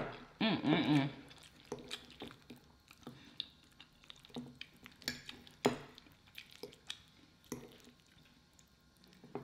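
Metal fork clinking and scraping in a small glass bowl as food is scooped up: a sharp click at the start, then scattered light clicks and scrapes, the loudest about five seconds in. There is a short sound of the voice near the start.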